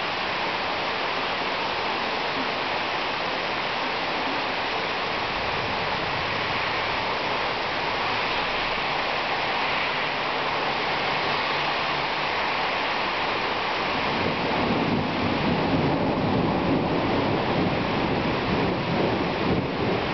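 Heavy thunderstorm downpour: rain pouring in a steady, dense hiss that swells louder about two-thirds of the way in.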